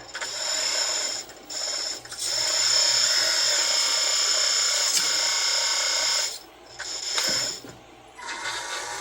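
Electric hydraulic pump of a 1/14 scale Volvo EC160E RC excavator running with a steady high whine as the hydraulic controls are worked, dropping out briefly a few times and starting again.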